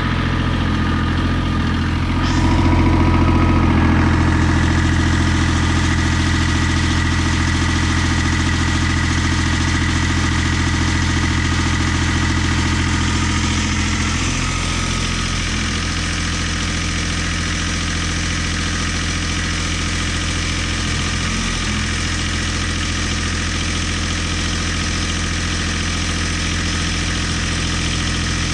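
Yanmar 186D tractor's 18-horsepower three-cylinder diesel running steadily at about half throttle, around 1500 RPM, while its hydraulics raise and lower the front loader. The engine gets louder about two seconds in and eases back a little about halfway through.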